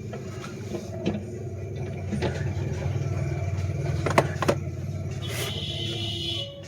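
A car engine running steadily at idle, with a few sharp clicks and a short hiss near the end.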